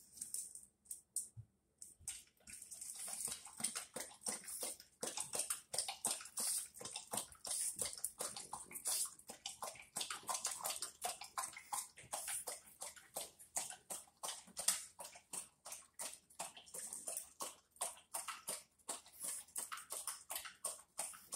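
Dog lapping water from a bowl, a quick, steady run of wet laps at about three to four a second that starts about two seconds in.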